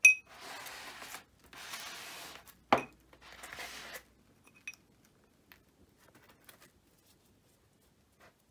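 Craft handling sounds at a work table: a short ringing clink, then three rustling scrapes of about a second each with a sharp knock between the second and third, and a small click after them. Then only faint ticks.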